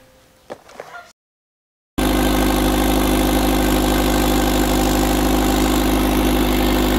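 A few faint knocks, then a turbocharged 1999 Honda Civic's D16 four-cylinder engine cuts in about two seconds in, running steadily at idle on its first start with stock injectors, fuel pump and ECU.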